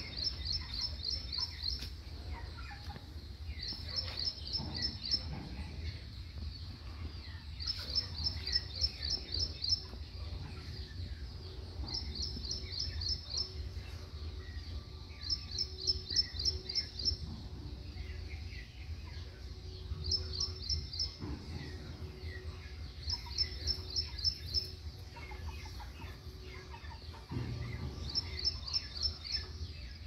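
A bird's high, rapid chirping trill, each burst about a second long, repeating every three to four seconds. Beneath it are soft scattered clucks from young Aseel chickens over a low steady hum.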